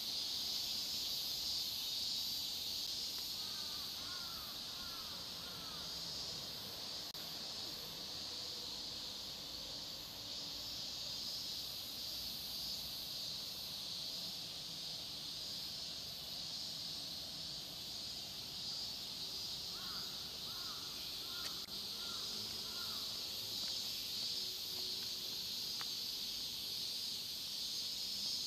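A steady high insect chorus, with a crow cawing faintly in short runs of four or five calls, once about four seconds in and again around twenty seconds in.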